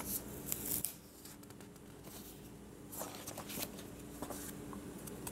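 Paper rustling in short bursts as a credit card is taken out of its folded paper carrier letter, over a faint steady hum.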